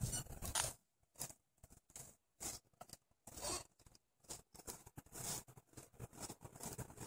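Irregular scratchy rustling in short bursts: a shoe rubbing a Dalmatian's belly fur while the dog wriggles on its back in the grass.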